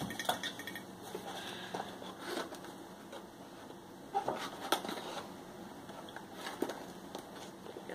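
Plastic measuring spoon scooping and scraping baking soda inside a cardboard box: a handful of light, scattered clicks and scrapes.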